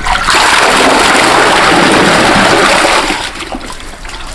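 Shallow water in a drained fish tank splashing hard for about three seconds, then dying down, as a fish is grabbed by hand.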